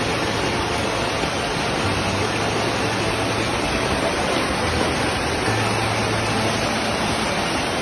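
Steady loud rush of floodwater surging down a street, with a faint low hum coming and going underneath.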